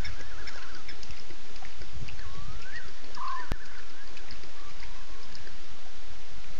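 Night-time animal calls at a waterhole: short chirps and trills, and one whistle that rises and falls, over a steady low rumble. One sharp click comes about three and a half seconds in.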